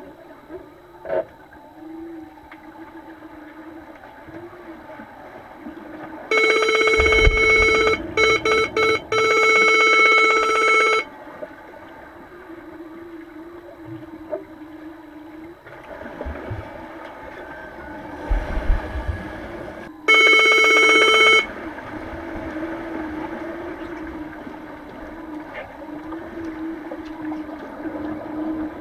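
Underwater signal horn giving a loud, steady electronic tone about six seconds in. It lasts several seconds and is cut by three quick breaks, then sounds again for about a second and a half around two-thirds of the way through. Between the blasts there is a low underwater hum from the pool.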